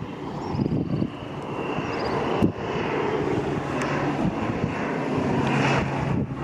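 Fixed-wing airplane flying by, its engine drone growing steadily louder with a steady low hum.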